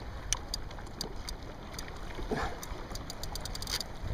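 Water lapping against a kayak's hull, with a low rumble of wind on the microphone and scattered light clicks that come thicker near the end.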